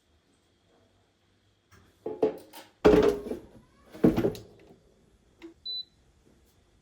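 A run of knocks and clunks, the two loudest about a second apart, followed by a brief high beep.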